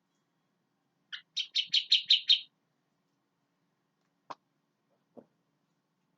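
Sooty-headed bulbul (kutilang) calling a quick run of about seven chattering notes, starting about a second in. Later come a single sharp click and a faint low knock.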